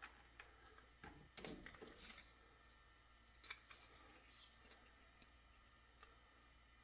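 Near silence with a few faint clicks and short scraping rustles of hand-handling, most about a second in and again around three and a half seconds in.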